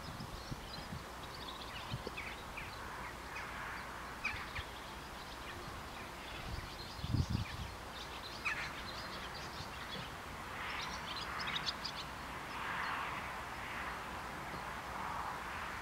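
Birds chirping and singing in short high calls over a steady low background rumble, with one brief low thump about seven seconds in.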